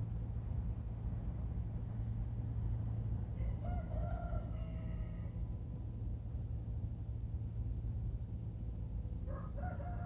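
A rooster crowing twice: a call of about two seconds a third of the way in, and another starting near the end. A steady low hum runs underneath.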